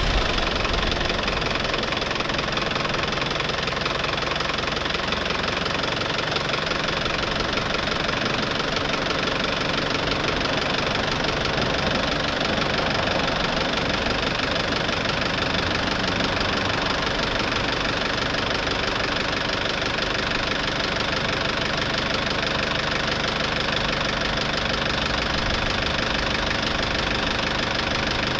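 Mitsubishi J53's 4DR6 direct-injected turbo diesel idling steadily.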